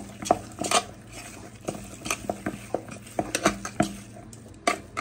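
Gram-flour batter and grated paneer being mixed by hand in an aluminium pot, with irregular clinks and knocks, several a second, as the hand and bangles strike the metal sides and rim.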